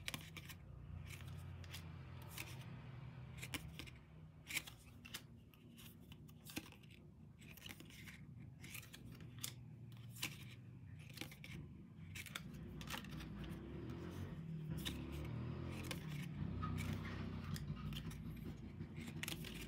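Glossy photo cards being handled, flicked apart and pressed onto a wall: irregular light clicks and taps, over a faint low hum.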